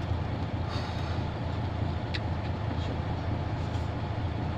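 Steady low rumble of a truck's engine heard inside the cab, with a couple of faint clicks about two seconds in.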